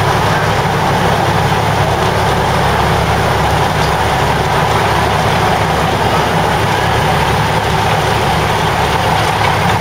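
Diesel railcar engine running steadily as the train creeps along, a low even hum with rolling noise, heard from inside the carriage.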